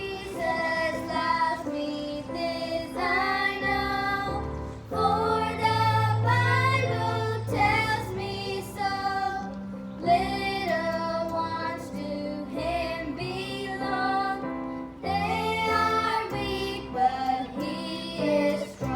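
A high solo voice singing a gospel song over instrumental accompaniment with sustained low notes.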